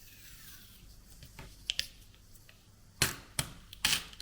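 Handling of a 3D-printed plastic washi tape cutter and washi tape: a faint pull of tape in the first second, then small clicks and taps. Three sharp plastic clicks come in the last second or so.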